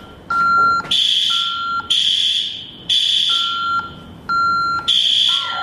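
Building fire alarm sounding in loud, high-pitched blasts about a second apart, with a lower steady beep coming in between some of them. It has been set off by stage fog from a smoke machine.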